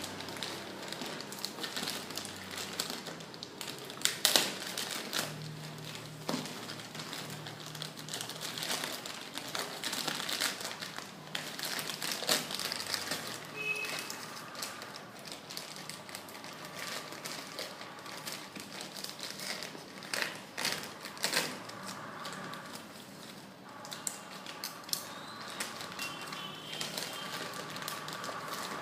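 Polythene courier packaging being handled and opened by hand: irregular plastic rustling, with several sharper, louder noises along the way.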